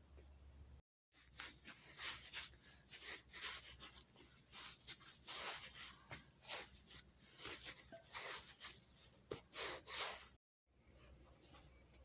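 A plastic bench scraper and hands pressing and cutting a log of bread dough into portions on a plastic-covered counter: irregular scratchy scraping and crinkling of the plastic sheet. The sound cuts out briefly about a second in and again near the end.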